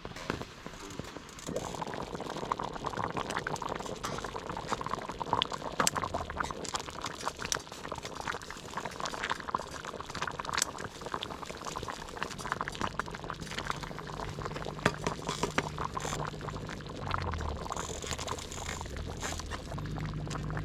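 Stew bubbling at a boil in a Dutch oven, with a steady hiss and many small pops. The sound fills in about a second and a half in.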